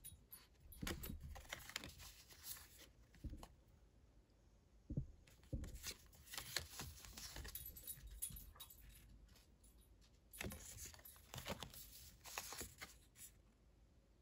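Faint rustling and light clicks of oracle cards sliding against each other as they are handled one by one, in three short bouts.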